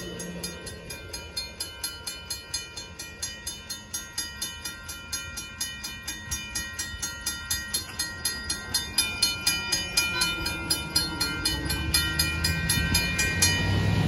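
Railroad crossing warning bell ringing in an even, rapid series of strokes while the crossing lights flash, growing louder and then stopping shortly before the end as the gates lift. Road traffic rumbles up low in the last few seconds.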